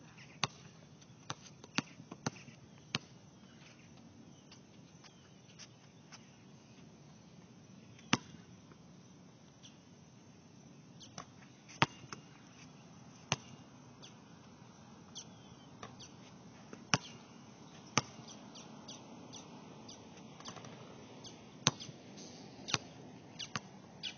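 A basketball bouncing on an outdoor hard court: sharp single thuds every few seconds, with a quick run of bounces in the first few seconds and another near the end.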